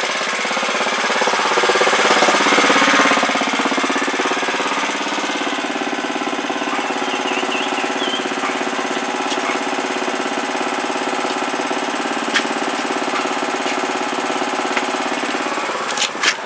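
Degoverned Predator 212 single-cylinder four-stroke engine, fitted with a high-compression head and 18 lb valve springs, running on test. It runs steadily, louder for a second or so about two seconds in, then settles.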